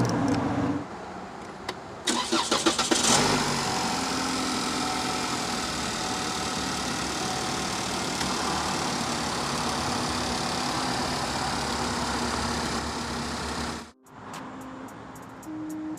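2013 Chevy Malibu's 2.5L Ecotec four-cylinder engine, freshly fitted with new spark plugs and coil packs, cranking on the starter about two seconds in, catching with a brief rev flare, then idling steadily. It cuts off suddenly near the end.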